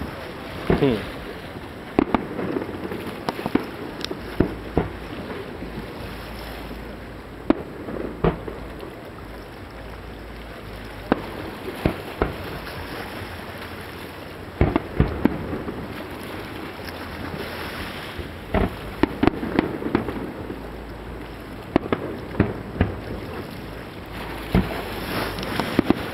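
Aerial fireworks shells bursting over the sea: about twenty sharp bangs come at irregular intervals, clustering near the middle and again toward the end, over a steady background rush.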